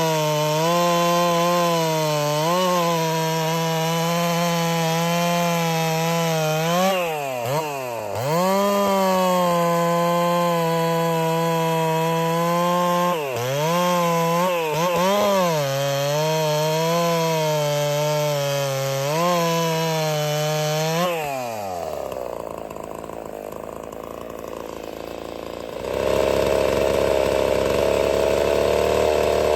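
Ported Husqvarna 61 two-stroke chainsaw running at high revs while cutting wood, its pitch dipping briefly several times as the chain loads in the cut. About 21 seconds in the engine note winds down and goes quiet. A steady mechanical noise starts up again loudly near the end.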